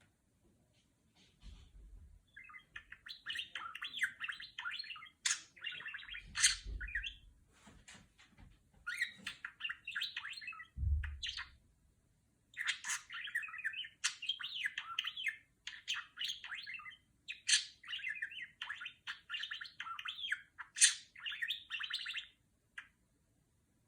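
Budgerigar chattering and warbling in long bursts of fast chirps and clicks, with short pauses between. A few brief low thumps underneath in the first half.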